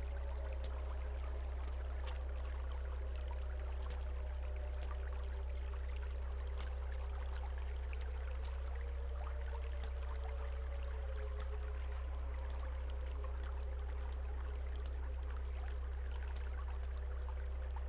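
A steady low drone with faint, slowly wavering higher tones over it, a light hiss and scattered faint clicks: an eerie ambient film underscore.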